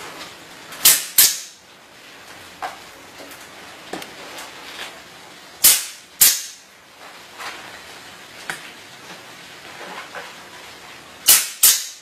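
Pneumatic C-ring (hog ring) gun firing six times in three quick pairs, about five seconds apart, each shot a sharp snap with a short hiss after it as rings are clinched through upholstery fabric.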